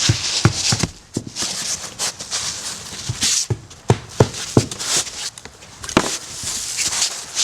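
Felt underlayment being nailed to a wooden roof deck: irregular sharp knocks of nails being driven, a dozen or so, with bursts of hiss and rustle between them.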